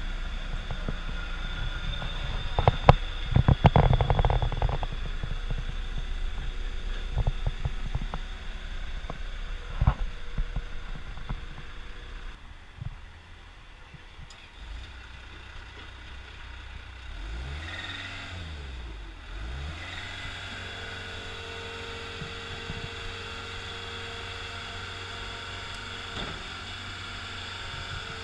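Caterpillar 252B skid steer loader's diesel engine running, with loud clanks and knocks in the first few seconds. About two-thirds of the way through, the engine revs up and down a couple of times, then settles into a steady run with a steady higher tone over it.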